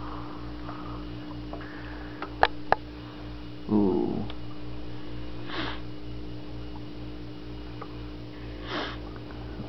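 Aquarium pump humming steadily with a low pulsing throb. Two sharp clicks come a little over two seconds in, then a short falling voice-like sound and two brief sniffs.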